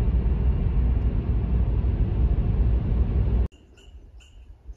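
A loud, steady low rumble that cuts off abruptly about three and a half seconds in. Near the end, high chirps repeat in a regular rhythm over a quiet background.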